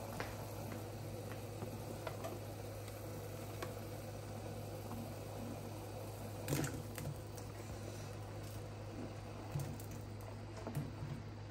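Potatoes and vegetables tipped from a glass dish and pushed with a spatula into a pot of boiling curry broth: a clatter about six and a half seconds in and a few softer knocks near the end, over a steady low hum.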